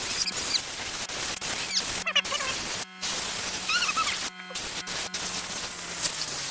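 Compressed air hissing from a small air-compressor blow nozzle as it blows debris out of an electric chainsaw. The hiss cuts off briefly several times and comes straight back, with short squeaky whistles over it.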